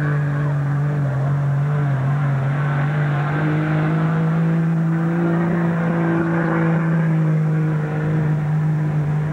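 Pickup truck's engine running hard at high, nearly steady revs under heavy load while dragging a truck-pulling sled, the pitch edging up slightly in the middle of the pull.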